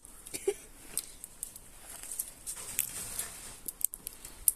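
Scattered sharp crackles and pops of food and oil sizzling on a barbecue grill, coming at irregular moments.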